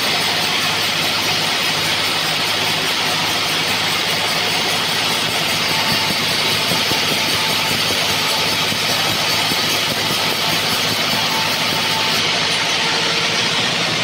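Sawmill band saw running with a loud, steady, hissing noise. The highest part of the hiss drops off about twelve seconds in.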